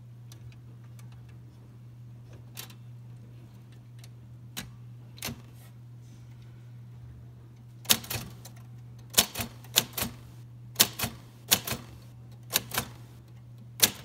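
1953 Royal Quiet De Luxe manual typewriter, its number keys struck one by one: a few faint clicks at first, then from about eight seconds in, about a dozen sharp typebar strikes against the platen, many in quick pairs.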